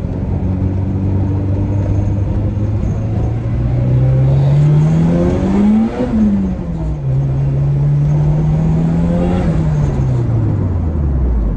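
Turbocharged Acura Integra with an LS-VTEC engine pulling hard under acceleration: the engine note climbs for about six seconds, drops sharply at an upshift, climbs again, then falls away as the throttle is lifted near the end.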